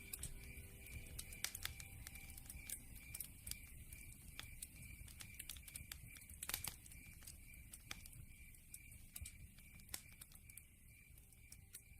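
Campfire crackling and popping in irregular sharp snaps, one louder pop about halfway through, over a faint high chirp repeating evenly about four times a second; the whole fades slowly.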